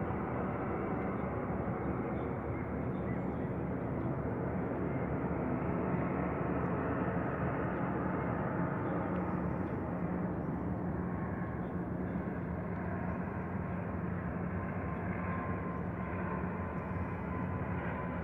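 Turboprop airliner flying low on its landing approach: a steady drone, with a faint high whine coming in about ten seconds in.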